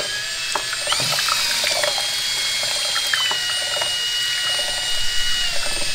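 A drill spinning a mixing paddle in a plastic cup of two-part expanding foam, with a steady motor whine and light clicking of the paddle against the cup. The whine steps down a little in pitch about halfway through and again near the end.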